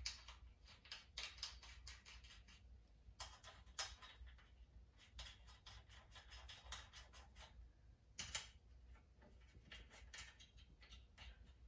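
Faint runs of metallic clicks and clinks from a wrench tightening the strut bar's mounting bolts on the strut tower, with a few sharper single clicks, one about four seconds in and one about eight and a half seconds in.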